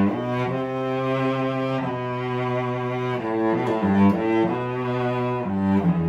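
A 1990 David Palm cello, a Stradivari-model instrument, bowed in a slow passage of long held notes, with a quicker run of shorter notes in the middle and a drop to a low held note near the end.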